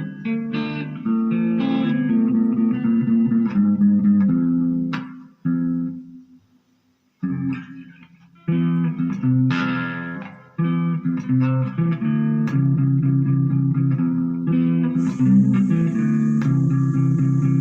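Electric guitar played through a Marshall MG15GFX 15-watt 1x8 combo practice amp: notes and chords, stopping for about two seconds midway, then going on. A faint high hiss joins near the end.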